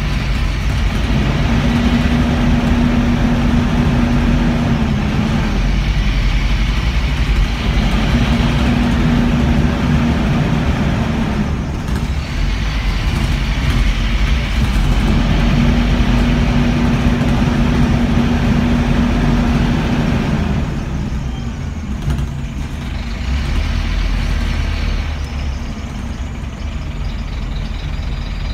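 Scania N230UB bus's five-cylinder diesel engine and running gear heard from inside the saloon while the bus drives: a steady low rumble with a whine that comes and goes in stretches of a few seconds, easing off near the end.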